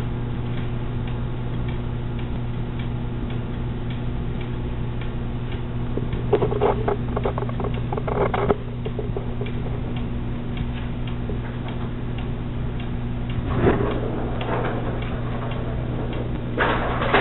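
Bursts of rapid clicking and rattling from a cat batting a toy around: one in the middle, a shorter one later, and another near the end. Under them runs a steady electrical hum with faint ticking.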